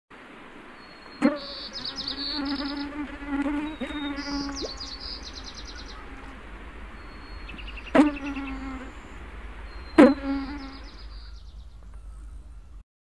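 A fly buzzing close to the microphone, its hum wavering up and down in pitch. It swells sharply three times as it passes right by: about a second in, and twice more in the second half.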